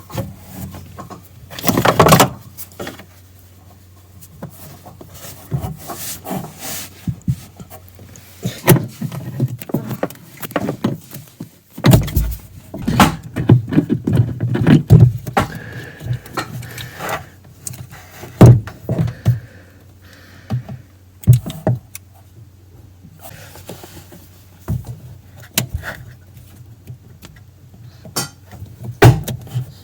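Irregular clatter, knocks and rattles of hard parts being handled on the dishwasher during disassembly, over a steady low hum.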